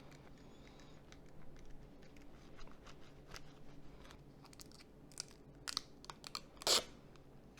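Small plastic clicks and scrapes of Nokia 2690 phone parts being handled and fitted together. A few sharper clicks come in the last couple of seconds, the loudest a short crunch near the end.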